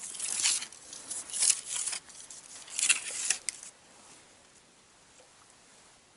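Rustling and crinkling handling noise, clothing and grass brushed as the angler moves with the rod, in several bursts over the first three and a half seconds, then only faint background.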